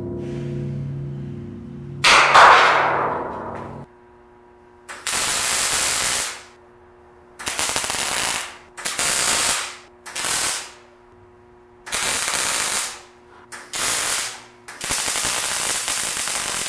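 A MIG welder tack-welding a steel patch onto a steel tank. After a few seconds of background music, there are about seven short bursts of arc crackle, each lasting a second or two with brief pauses between them.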